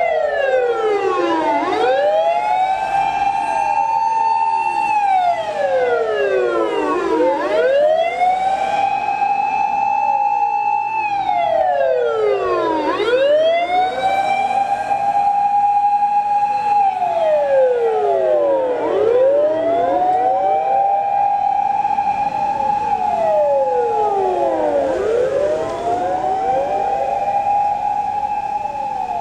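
Several fire engine sirens wailing loudly together from a passing convoy, out of step with one another. Each rises to a high held tone, holds for a few seconds, then falls away, about every six seconds.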